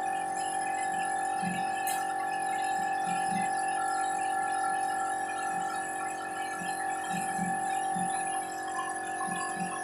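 Small blow-moulding machine for capsule floats running on trial, fed by a small air compressor that runs without stopping. It makes a steady electric whine with several constant tones, with faint irregular low knocks underneath.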